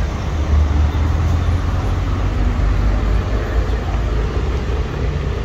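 Road traffic with cars passing, a steady low rumble.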